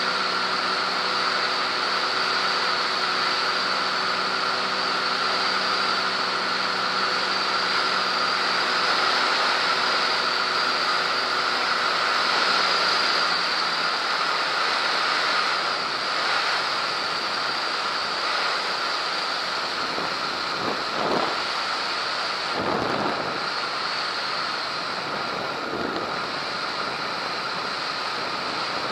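Cessna T210 in flight, heard as a steady rush of airflow over the camera microphone, with the engine's even drone underneath. The drone fades out about halfway through while the wind rush carries on.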